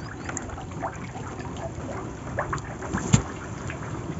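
Wet fishing net being hauled hand over hand over the side of a wooden boat, water dripping and splashing off the mesh with many small scattered taps, and one sharper knock about three seconds in.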